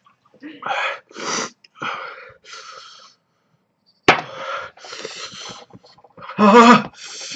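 A man breathing hard through his mouth in short, hissing, gasping breaths from the burn of a ghost chili pepper. There is a pause, then a sharp click about four seconds in, and a louder strained vocal moan near the end.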